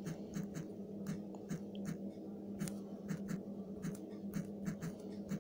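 Fingertip taps typing on a smartphone's touchscreen keyboard: a run of short, sharp clicks at an irregular rhythm of roughly four a second, over a steady low hum.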